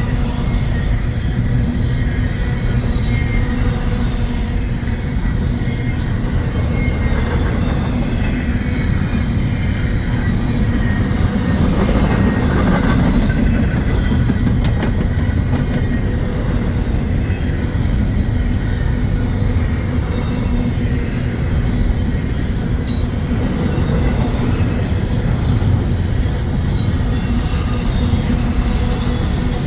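Union Pacific freight train rolling past, a steady, loud rumble of wheels on rails that holds at the same level throughout.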